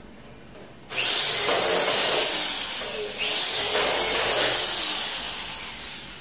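Corded electric drill running in two spells: about two seconds, a brief break, then about three seconds fading out near the end. It is driving screws through the sliding-door rail into the metal tube jamb.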